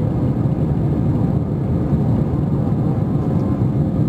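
Airbus A320 cabin noise in the initial climb just after takeoff: steady, loud rumble of the jet engines and rushing air.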